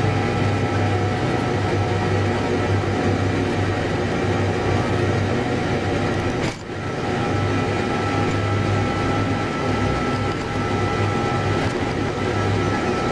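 New Holland LB115.B backhoe loader's diesel engine and drivetrain running steadily under way on the road, heard from the cab, with a steady whine over the engine drone. The sound dips briefly about halfway through.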